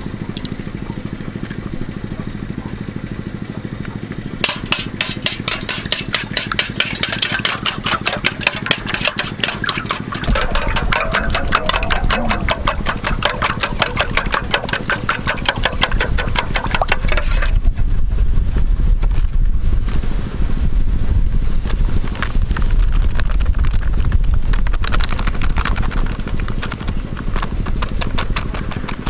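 Eggs being beaten in a stainless steel bowl: rapid, rhythmic clinking of the utensil against the metal, starting about four seconds in and thinning out after about seventeen seconds. Underneath runs a steady low engine-like hum that grows louder in the second half.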